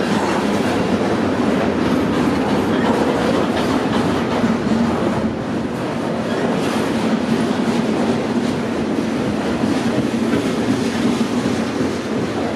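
Freight cars carrying green trash containers rolling past at just above walking speed: a steady rumble of steel wheels on rail, with occasional light clicks.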